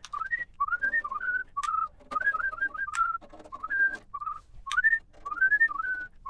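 A person whistling a meandering tune in short gliding notes, with a few sharp clicks as screws are taken out of the instrument's metal case and dropped into a plastic parts bin.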